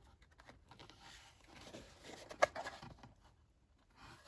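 Faint handling noises of a boxed diecast model's packaging: light rubbing and scraping, with one sharp click about halfway through.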